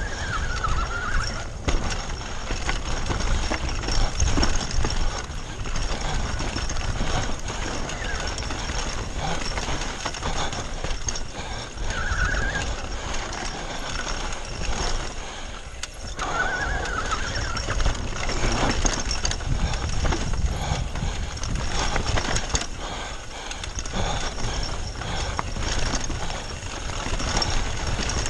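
Foes Hydro 2 e-bike descending a rough downhill trail at speed: steady rattling and clatter of the bike over roots and rocks, with wind rumble on the microphone. Short wavering brake squeals come three times, near the start, about twelve seconds in and about seventeen seconds in.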